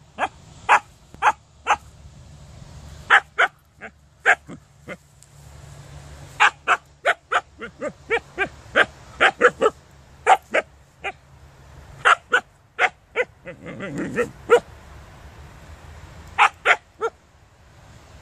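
Siberian husky barking at a hedgehog: short, sharp barks in quick runs of several, with pauses between the runs.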